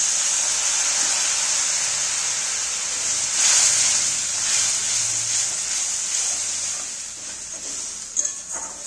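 Water sizzling in hot mustard oil with fried onions and ground spices in a kadai as the masala is cooked down, a steady hiss that swells about three and a half seconds in and dies away toward the end. A metal spatula clicks against the pan near the end.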